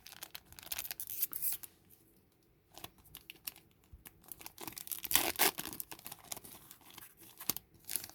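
Magic: the Gathering draft booster pack's foil wrapper being torn open and crinkled by hand, in a string of sharp rips and rustles with a short pause about two seconds in and the loudest tearing about five seconds in.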